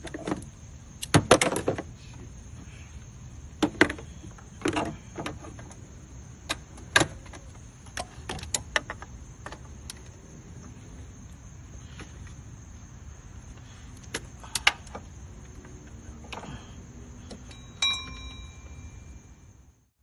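Ratchet and socket tightening an alternator adjuster bolt in a car's engine bay: bursts of ratchet clicks and metal tool clinks. Near the end there is one ringing metallic clink.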